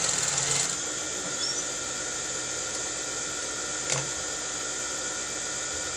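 Industrial sewing machine: a short burst of stitching at the start, then the motor's steady whir, with one sharp click about four seconds in.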